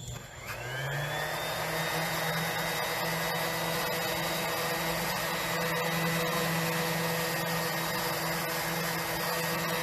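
Electric sander with 80-grit paper spinning up about half a second in, its whine rising in pitch, then running steadily while sanding down a wooden bench.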